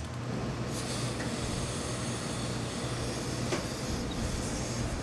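Industrial hose-fed steam iron and pressing table in use: a steady low hum starts suddenly, with steam hissing from just under a second in as the iron is pressed onto the wool trousers.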